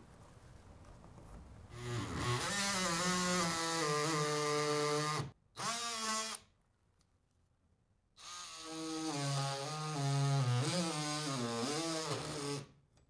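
Cordless DeWalt oscillating multi-tool buzzing as its blade cuts a fixture-box hole into the ceiling along a traced outline. Its pitch wavers as the blade bites. It starts about two seconds in, cuts out briefly, stops for a couple of seconds, then runs again until near the end.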